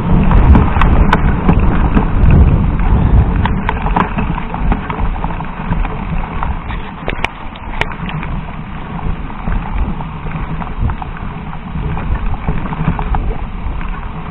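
Mountain bike ridden over a rough dirt and sand trail: tyres rolling and crunching over the ground, with scattered rattles and knocks from the bike and the camera on it, and wind buffeting the microphone. Loudest in the first few seconds, then a little lower.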